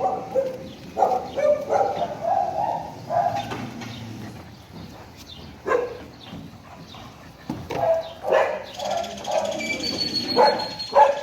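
Dogs barking in short runs of several barks, with quieter gaps between.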